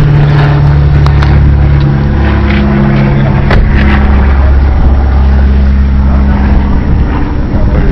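Loud, steady low engine drone with a noisy hiss over it, its pitch stepping slightly a couple of times.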